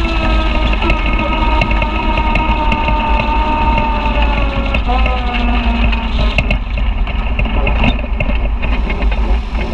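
Side-by-side UTV's engine running while under way, its pitch drifting slowly with the throttle and shifting about halfway through, over a heavy wind rumble on the microphone.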